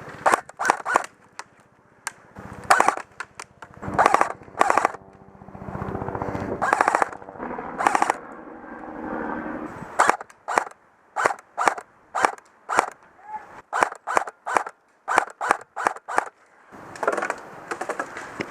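Airsoft electric guns firing. Short rapid full-auto bursts come in the first half, then a run of single shots at about two a second.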